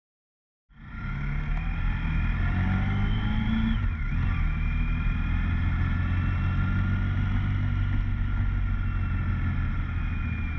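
Honda ST1300 motorcycle's V4 engine running as the bike rides. It comes in suddenly just under a second in, climbs in pitch for a few seconds, dips briefly about four seconds in, then runs steady.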